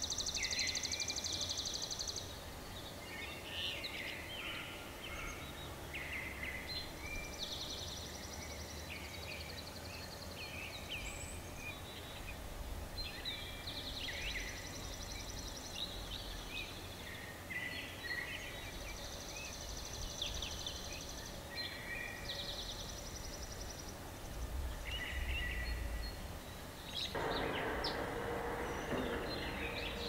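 Wild songbirds singing and calling: repeated fast trills and short chirps, several birds overlapping. A steady background hiss grows louder about 27 seconds in.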